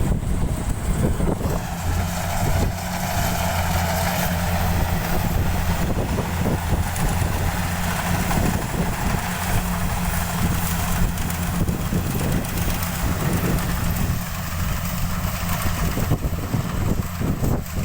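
Rice combine harvesters running steadily at close range while cutting, with a constant low diesel engine hum under the machines' broad mechanical noise.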